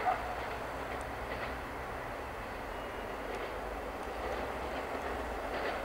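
VT628 diesel railcar running as it pulls away, a steady low rumble with an even wash of noise, while a car drives across the level crossing.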